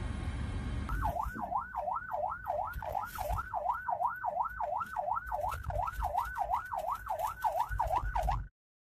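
Low vehicle rumble, then an emergency vehicle's siren yelping, its pitch sweeping up and down about twice a second over the rumble, cutting off abruptly near the end.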